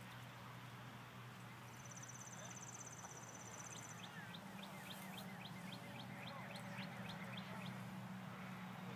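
Small birds calling: a fast, high trill, then a run of quick repeated chirps at about four a second, over a steady low hum.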